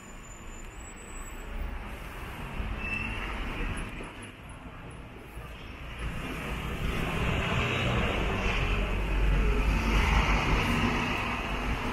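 Road traffic on wet tarmac: a passing vehicle's engine rumble and tyre hiss swell from about halfway through, loudest near the end, over steady traffic noise.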